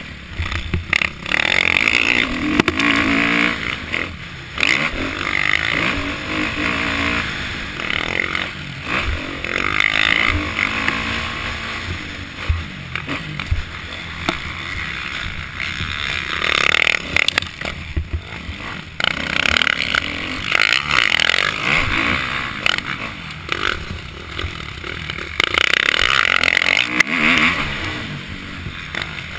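Kawasaki KX450F motocross bike's single-cylinder four-stroke engine under hard riding, revving up and dropping off again and again as the rider accelerates and shuts off through the track.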